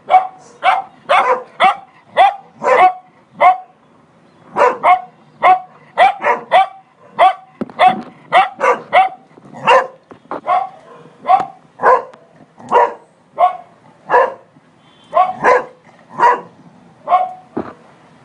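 Cocker spaniel barking over and over in short, single barks, roughly one to two a second, with a brief break about four seconds in. The barking stops shortly before the end.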